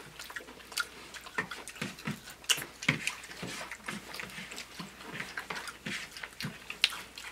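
Several people chewing and smacking as they eat Doritos nachos: a dense, irregular run of short mouth clicks and crunches.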